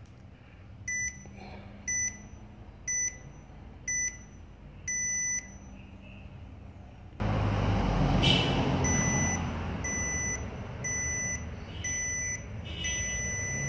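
Hall Pass Watch interval timer beeping. Four short beeps a second apart and a longer fifth beep count in the start. Further on, four more short beeps lead into a long final beep that marks the 39-second work and 1-second rest running together into the next round.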